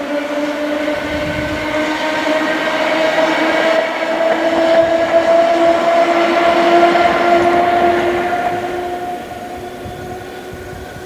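PKP ET41 twin-section electric locomotive running past, its motors giving a whine that rises slowly in pitch over rolling noise. It is loudest a little past the middle, then fades away near the end.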